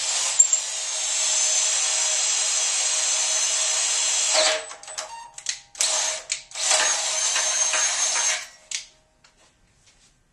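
Cordless drill boring through a drilling fixture into a grinder's cast aluminum frame web: it runs steadily for about four and a half seconds, gives a few short blips, runs again for about two seconds and stops.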